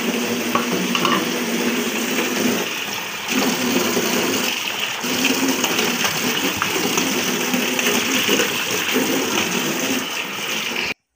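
Kitchen tap running hard into a stainless steel sink, the stream splashing over hands as dishes and the sink basin are rinsed. The water sound cuts off suddenly near the end.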